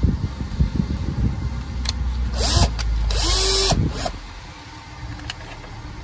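Bosch cordless drill run twice in short trigger pulls, its motor spinning up and winding down each time, the second run about a second long. Light handling knocks come before it, with a low wind rumble throughout.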